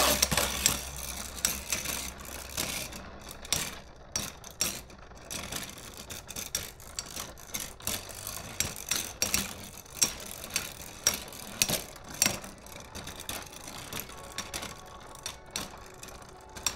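Two spinning Beyblade tops, one a full stainless-steel Meteo L-Drago, whirring and rattling across a clear plastic stadium floor. Sharp metallic clacks come again and again, roughly one every half second to second, as the tops strike each other.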